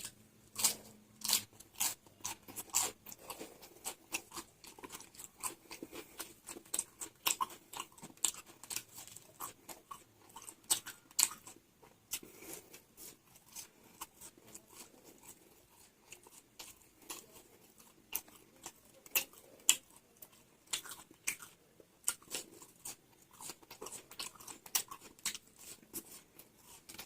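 A person chewing crunchy raw salad vegetables such as cabbage: many short, crisp crunches in an irregular rhythm.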